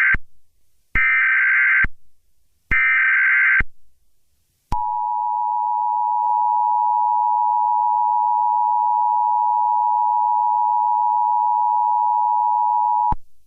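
Emergency Alert System tones: the last of one and then two more short bursts of the SAME digital header, a harsh warbling buzz, followed by the two-tone attention signal held steady for about eight seconds before it cuts off.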